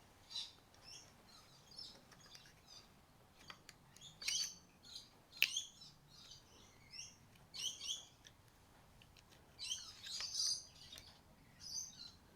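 Small birds chirping in short, repeated notes, fairly faint, with a few light sharp clicks among them.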